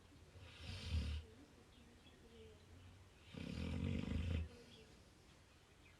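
Labrador retriever snoring in its sleep: two snores, a shorter one near the start and a longer, louder one about three seconds in.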